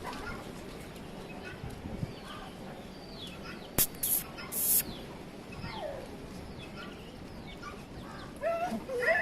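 Birds chirping again and again in short falling notes over a steady background hiss, with three brief high hissing sounds a little before the middle and a louder wavering call near the end.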